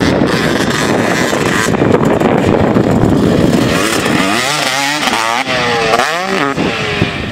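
KTM 250 SX two-stroke dirt bike engine ridden hard. It is a loud, rough engine noise at first, then revs rise and fall sharply several times with the throttle about halfway through.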